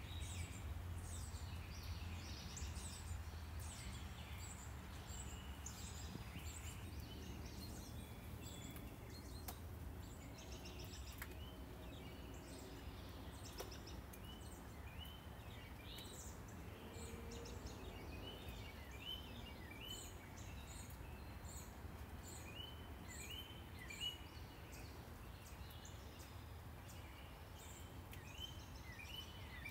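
Songbirds chirping and singing, with many short high notes and a run of quick repeated phrases in the second half, over a steady low rumble of town traffic.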